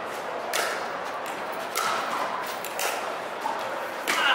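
Pickleball rally: a paddle striking the hard plastic ball about four times, a sharp pop roughly every second, the last hit the loudest.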